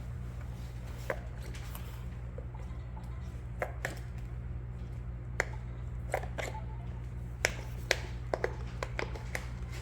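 Scattered sharp clicks and taps, about a dozen at irregular intervals, over a steady low hum.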